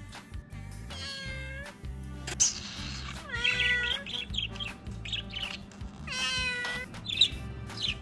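A cat meowing three times, each meow under a second long, over background music.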